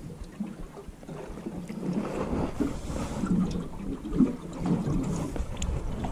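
Small waves slapping irregularly against a small aluminium boat's hull, with light wind on the microphone; the slapping picks up about two seconds in.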